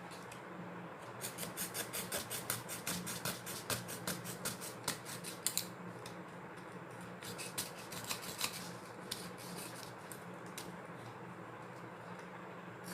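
Pen knife blade cutting a wooden ice-cream stick: a quick run of short scraping strokes for about five seconds, then a few scattered strokes.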